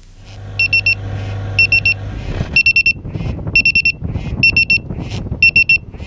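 Tocsin 3 carbon monoxide detector sounding its alarm: groups of four quick, high-pitched beeps, about one group a second. It is alarming on carbon monoxide, reading 73 ppm, above the 35 ppm level that sets off its first alarm.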